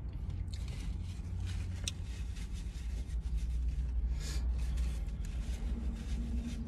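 Hands handling a soft tortilla wrapped around chicken close to the microphone, giving light rustling and scraping crackles, over a steady low rumble inside a parked car.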